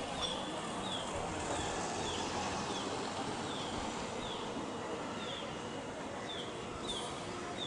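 A bird's short, high, falling chirp repeated about every half second to a second, over steady outdoor background noise.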